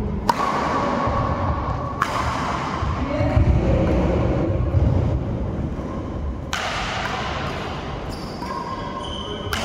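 Badminton rally: rackets striking the shuttlecock with sharp cracks, among the thuds of players' feet on the court floor, all echoing in a large hall.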